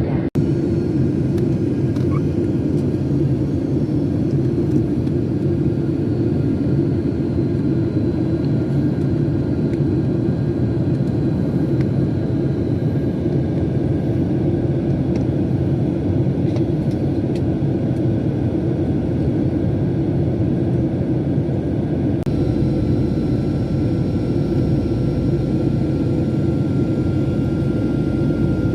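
Cabin noise of an airliner on descent for landing: the steady drone of the engines and rushing air, with faint steady tones above it. About two-thirds of the way through, a deeper rumble comes in and one of the tones shifts in pitch.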